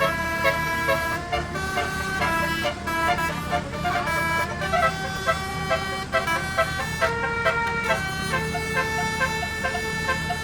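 Telolet bus horn, an 18-trumpet, 18-note air horn, playing a melody of changing notes: some held about a second, a run of quick short notes in the middle. A bus engine runs steadily underneath.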